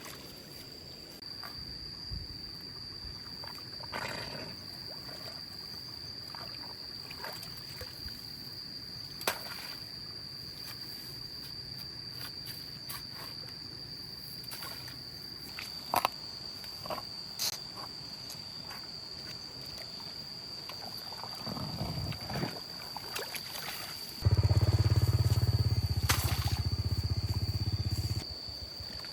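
Outdoor ambience with a steady high-pitched buzz, likely insects, and scattered small clicks and knocks. Near the end a loud, low, steady sound lasts about four seconds and then stops abruptly.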